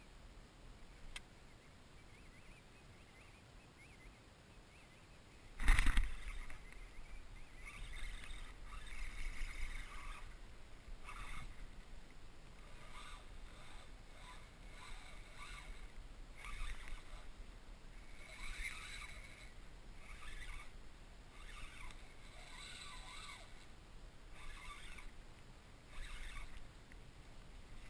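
Water lapping and sloshing against a kayak's hull in irregular splashy patches, with one sharp thump about six seconds in.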